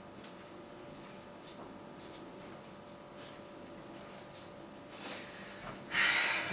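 Quiet room with faint footsteps and light knocks as people walk through a doorway, then a short breathy noise lasting about half a second near the end.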